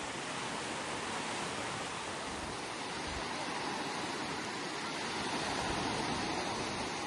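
Sea surf washing onto a beach: a steady rushing hiss of waves that swells a little about five seconds in.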